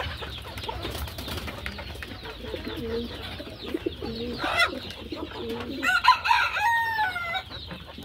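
A flock of desi chickens clucking and calling, with a rooster crowing once, a drawn-out call with falling pitch, about six seconds in.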